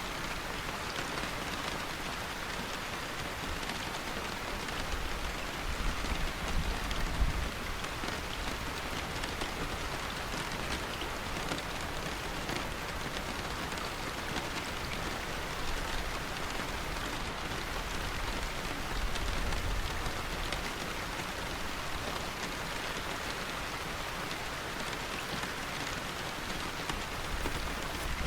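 Steady, heavy rainfall pattering on a surface, with a low rumble swelling briefly about six seconds in and again near twenty seconds in.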